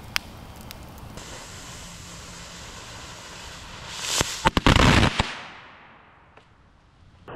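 A fuse hissing steadily for a few seconds, then a quick string of firecracker bangs about four and a half seconds in, several reports close together, fading off afterwards.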